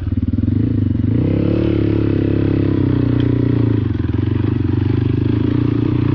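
Motorcycle engine running under way; its pitch rises about a second in, holds, then eases off around four seconds before settling steady.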